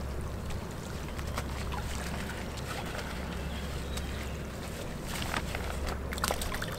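Fishing keepnet being emptied and lifted out of the river: water splashing and draining through the mesh over a steady low rumble, with a cluster of short splashes about five to six and a half seconds in.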